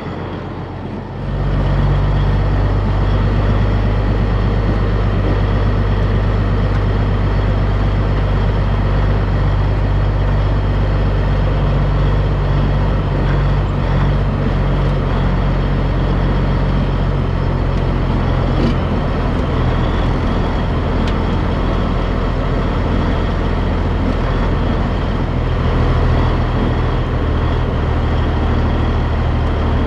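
Heavy diesel engine that comes in loud about a second in and runs steadily, its note shifting a little now and then.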